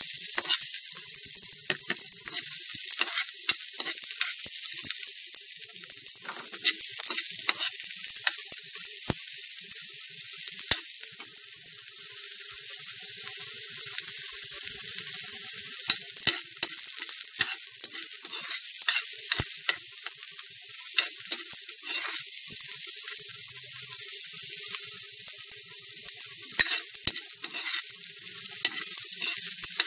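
Cubed marinated chicken breast and onion sizzling in a little hot oil in a pan, with frequent short clicks and scrapes of a utensil stirring against the pan.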